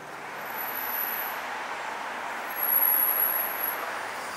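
Street traffic: a passing vehicle's tyre and engine noise swells to a peak and then fades. Two brief thin, high-pitched whines sound above it.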